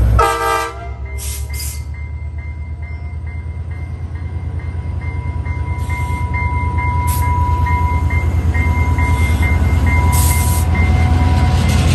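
Diesel commuter locomotive pulling slowly into a station. A short horn blast sounds at the very start, then the bell rings steadily over the deep, pulsing engine rumble, which grows louder as the locomotive draws alongside.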